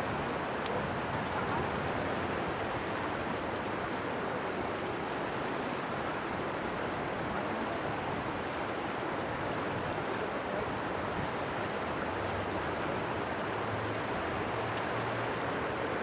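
Steady rush of river water and wind, with the low hum of a passing motor cargo ship's diesel engine faintly underneath, a little clearer in the last few seconds.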